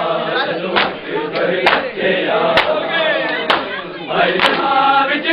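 A group of men chanting a noha in unison, punctuated by a sharp matam strike, hands beating on chests, about once a second in steady time with the chant.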